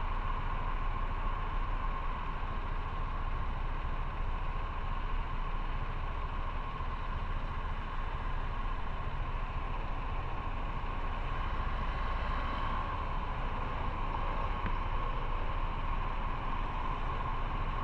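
Motorcycle on the move: engine running steadily under even wind and road noise.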